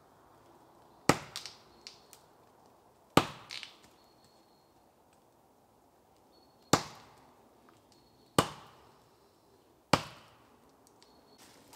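Axe chopping into a standing conifer trunk: five sharp chops at uneven intervals, each ringing briefly, while a small tree is felled for firewood.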